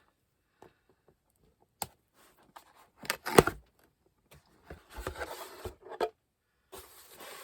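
Cardboard box being opened and handled by hand: scattered knocks, with the loudest bump about three and a half seconds in, then a stretch of rustling and scraping.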